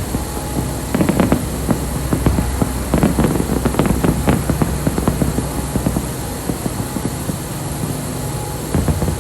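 Fireworks popping and crackling, the bursts thickest through the first half, over a steady low hum.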